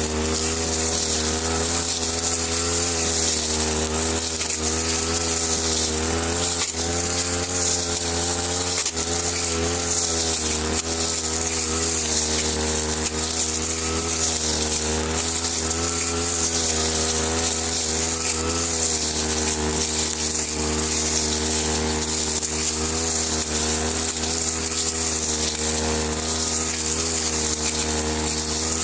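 Brush cutter's small engine running continuously with a buzzy drone, its speed rising and falling slightly throughout.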